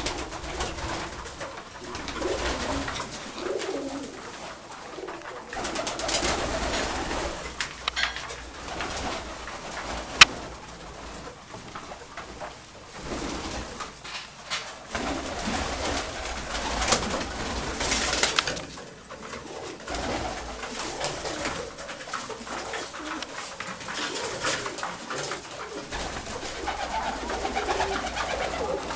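A flock of Saxon fancy pigeons (Saxon Lapwing and Saxon double-crested Shield pigeons) cooing in a small loft, with a sharp click about ten seconds in.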